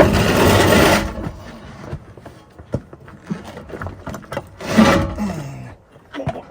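A heavy grinder machine shifting against concrete as it is moved on a backhoe. A loud rough scrape lasts about a second, followed by scattered knocks and clanks, and another scraping burst about five seconds in.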